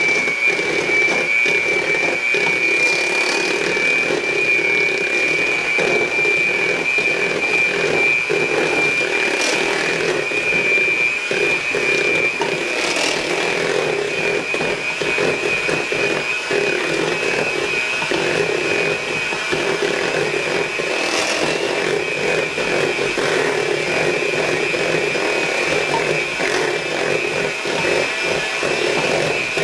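Electric hand mixer running steadily with a high whine, its beaters mashing boiled potatoes in a metal bowl.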